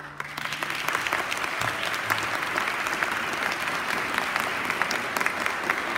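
Audience applause, dense and steady, breaking out just as the string quartet's last low note dies away.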